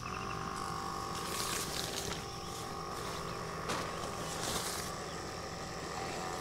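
A 12-volt water pump clicks on and then runs with a steady hum, pumping heated water from a bucket to the shower; a couple of brief hissy surges come through it.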